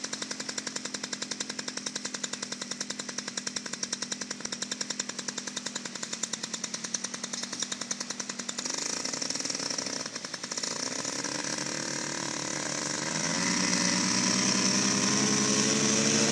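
Paramotor's two-stroke engine idling with a rapid, even putter. About nine seconds in it is throttled up for the launch, and its pitch climbs in steps as it grows louder.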